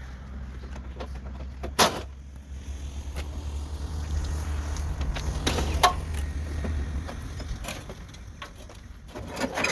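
Snaps, clicks and knocks of a Toyota Hilux's unbolted grille and headlights being worked loose from the front end, with two loud sharp snaps about two and six seconds in, over a steady low rumble.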